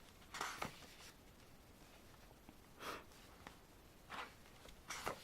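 Paper rustling as pages of an album photobook are turned and handled: about five brief rustles, two close together near the start, then single ones around three, four and five seconds in.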